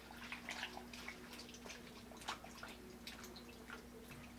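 Faint, scattered splashing and dripping of brine as hands press and turn cucumber peppers in a steel bowl of salt water, salting them for kimchi.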